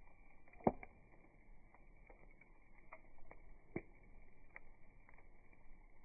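Wood fire crackling softly, with scattered sharp pops: a loud one about a second in and another near four seconds.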